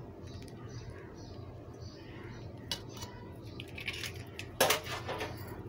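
Kitchen bowls and utensils clinking: a few light clicks, then one sharp, ringing clink about four and a half seconds in.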